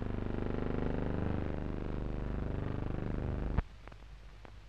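A steady low buzzing hum with many overtones that stops abruptly with a click about three and a half seconds in, leaving faint hiss and light ticks.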